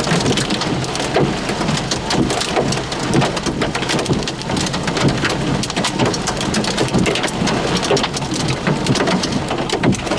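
Heavy rain pelting a vehicle's roof and windshield: a dense, uneven patter of drops, loud and steady.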